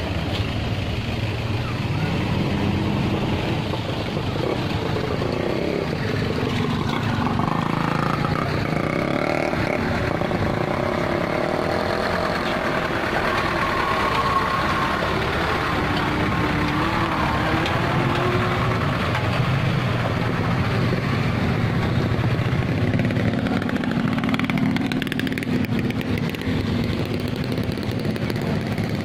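Motorcycle and truck engines running on the road, their pitch rising and falling as they rev and pass by.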